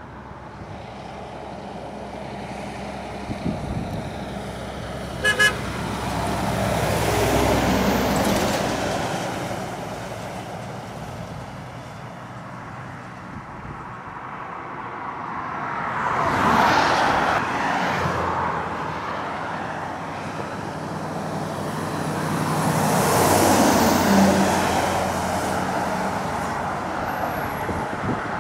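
Heavy articulated lorries grinding up a long climb, their diesel engines working hard, passing one after another so the engine and tyre noise swells three times and fades. A short truck horn toot sounds about five seconds in.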